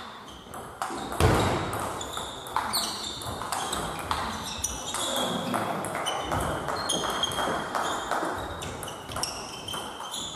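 Table tennis ball clicking off the bats and table in a rally, with short high squeaks and murmur in the background.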